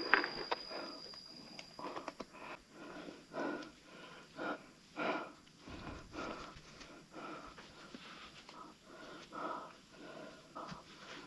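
A person breathing hard close to the microphone, in short irregular puffs about one to two a second: out of breath from exertion.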